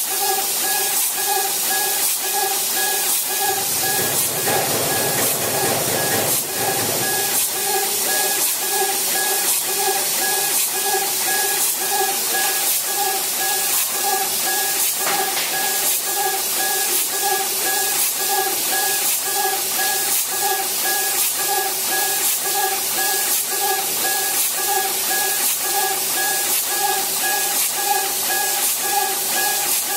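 Laser engraving machine with a rotary axis running a job on a wooden cylinder: a steady hiss with a motor whine that pulses about twice a second as the head sweeps back and forth. A low rumble joins in for a few seconds about four seconds in.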